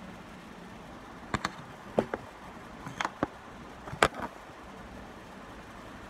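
Ceiling fans running with a steady airy whoosh. Several sharp knocks and clicks, some in quick pairs, come between about one and four seconds in and are the loudest sounds.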